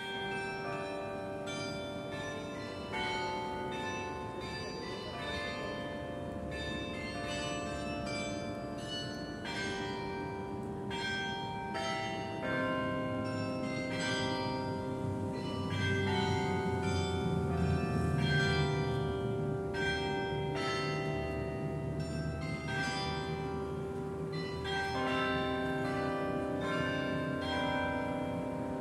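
St. Nikolai's 51-bell tower carillon playing a melody: bells struck one after another, their long ringing tones overlapping into chords.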